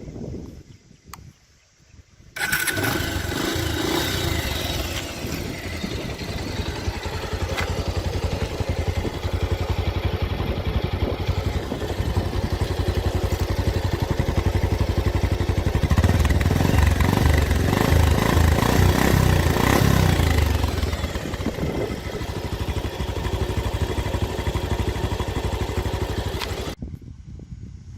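Motorcycle engine starting suddenly about two seconds in and running, with a louder stretch in the middle, then switched off shortly before the end.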